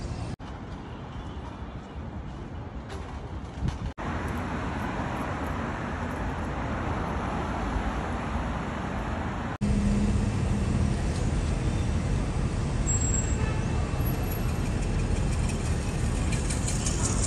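Steady street traffic noise, a low rumbling hum of passing vehicles, broken abruptly three times by cuts, and louder after the last break about ten seconds in.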